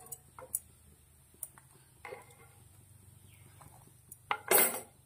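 Metal spatula and tongs knocking and scraping against a nonstick frying pan and a steel strainer as fried bati are lifted out of the oil: a few light taps and clicks, then a louder scraping clatter near the end.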